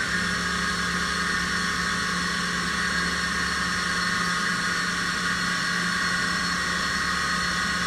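Instron 5900R universal testing machine's crosshead drive running as the crosshead is jogged toward the specimen: a steady, loud mechanical whine.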